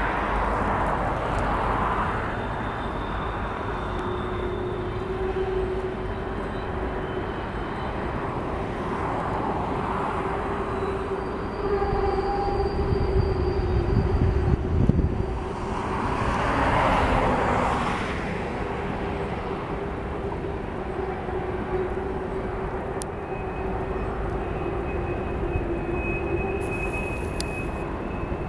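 CN container freight train rolling along the canyon, a steady rumble of railcars with a low tone held throughout. The rumble swells louder for a few seconds about halfway through.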